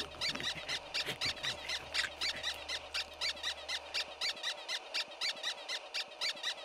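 Rapid, evenly repeated high squeaks, about four or five a second, over a low steady hum that stops a little past halfway.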